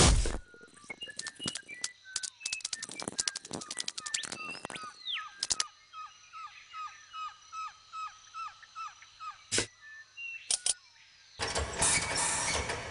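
Cartoon insect sound effects: a rapid patter of sharp clicks, then a run of short falling chirps at about two a second. A loud rushing noise starts near the end.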